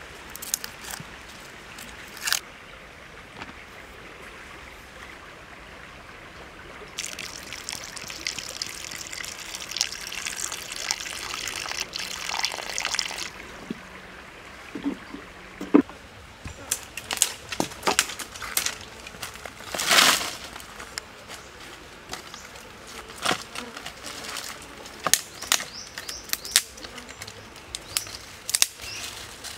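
Soft clicks of garlic cloves being peeled and dropped on a wooden board, then liquid pouring steadily for about six seconds, then scattered sharp clicks and knocks of dry twigs being handled.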